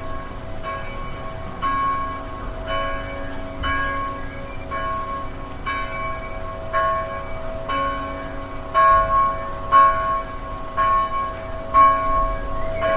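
Church bells ringing, struck about once a second, each stroke ringing on into the next. The strokes grow louder in the second half.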